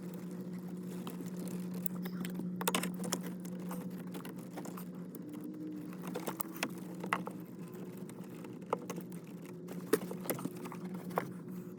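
Irregular clicks, knocks and rattles of plastic wiring connectors and clips being worked loose by hand in a car's under-dash wiring, over a steady low hum.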